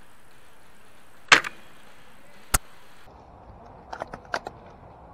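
Airsoft Lee Enfield bolt-action rifle firing one shot, a sharp crack about a second in, followed by a single sharp click about a second later. Near the end comes a quick run of four or five clicks.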